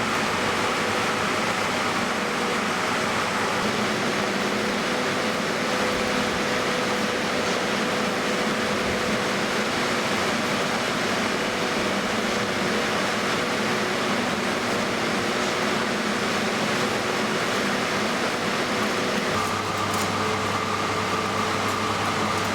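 Steady machine hum with a constant hiss and a few held tones. About 19 seconds in, the tones shift as a lower hum and a higher steady tone come in.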